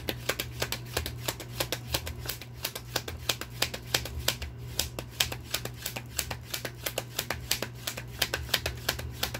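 A tarot deck being shuffled by hand: a steady run of quick card snaps, several a second, as the reader shuffles to draw a clarifying card.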